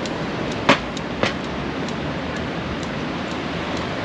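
Steady street background noise, with two sharp knocks about half a second apart about a second in, the first the louder.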